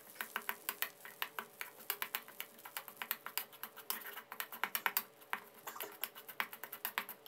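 Metal spatula tapping and scraping against a metal wok while stir-frying shrimp paste in a little oil: quick irregular clicks and scrapes, several a second.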